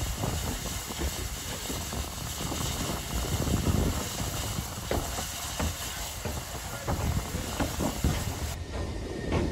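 Lambton Tank No. 29, an 0-6-2 steam tank locomotive, moving slowly with steam hissing from its open cylinder drain cocks, over a low rumble and scattered knocks from the wheels and motion.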